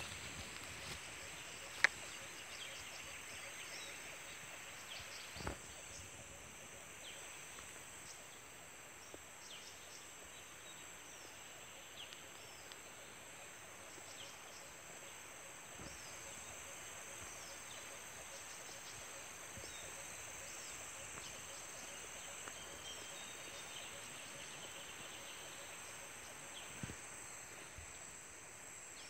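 Steady high-pitched drone of an insect chorus, with occasional faint chirps over it. A few soft clicks, one sharp click about two seconds in.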